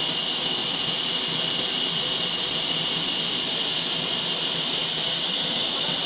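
Horizontal band sawmill running, its blade cutting a log with a steady high hiss that never changes.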